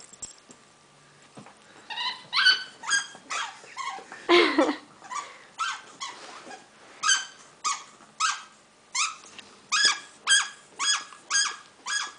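Corgi giving short, high-pitched squeaky yips and whines in play, about two a second once it starts about two seconds in, with one longer, louder cry sliding down in pitch about four and a half seconds in.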